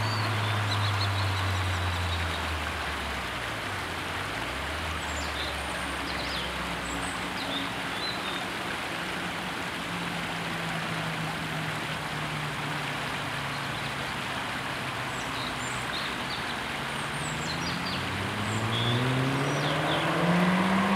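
Volvo 1.9 T4's turbocharged four-cylinder, with a 3-inch downpipe and twin 2.75-inch mufflers, fading away as the car drives off over the first several seconds. Birds chirp over steady background noise, then the exhaust note rises again from about 17 seconds as the car approaches under acceleration.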